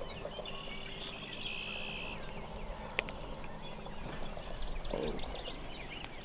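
Songbirds chirping and singing around the lake, with one bird's buzzy trill held for about a second and a half near the start. A single sharp click about three seconds in.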